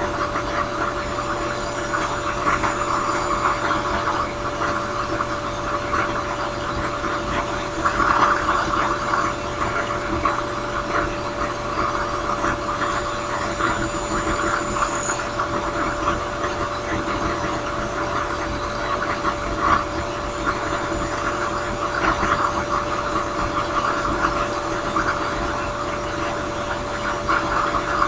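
Drill press spinning a sanding drum: a steady motor hum under a rough sanding rasp that swells and eases as a briar pipe bowl is pressed against the drum and shaped.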